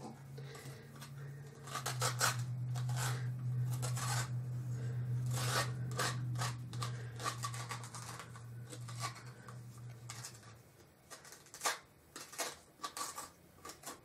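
Metal spoon scraping seeds and stringy pulp out of a halved raw spaghetti squash: a run of irregular rasping strokes. A steady low hum underneath stops about ten seconds in.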